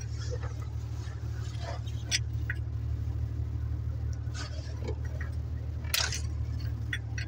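Four-cylinder diesel engine of a Mercedes-Benz 814 truck idling steadily, with sharp metallic clicks and clinks from a spanner on the injection line fittings, the loudest about six seconds in.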